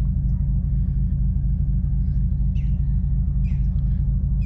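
Steady low rumble, with a few faint short chirps, likely from birds, about two and a half and three and a half seconds in and again near the end.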